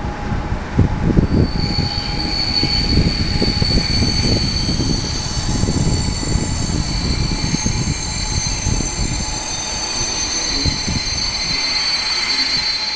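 ČSD/ČD class 460 electric multiple unit arriving at a station: a low rumble with knocks from the wheels over the track, and from about a second and a half in a high steady squeal of several tones from the wheels and brakes as it slows.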